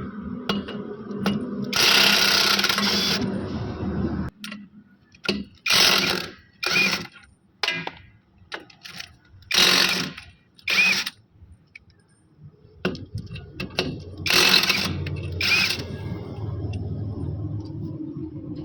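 INGCO 850 Nm impact wrench hammering in bursts: one longer run of about a second and a half about two seconds in, then six short bursts in pairs, some ending in a brief whine as the tool spins down.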